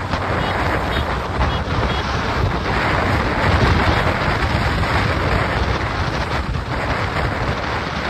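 Wind buffeting the microphone of a moving vehicle on the road: a loud, steady rush with a low rumble beneath.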